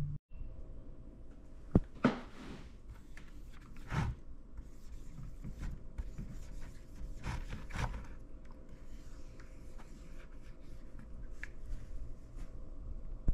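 Tip of a 10mm squeeze dripstick marker rubbing and scraping across a plastic bucket as a tag is written, with a couple of sharp knocks about two seconds in and a few lighter taps of the marker and bucket being handled.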